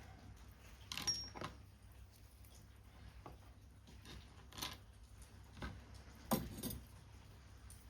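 Paper-craft work sounds: paper and small tools being handled, a few scattered clicks and rustles, the loudest about a second in and again just after six seconds, over a faint low hum.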